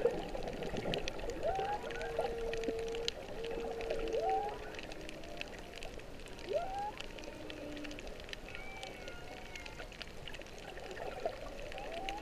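Humpback whale song heard underwater: a series of rising moans and upswept calls, with two long held tones in the first few seconds and thinner, higher glides later. Behind it, a steady water hiss and a constant crackle of faint clicks.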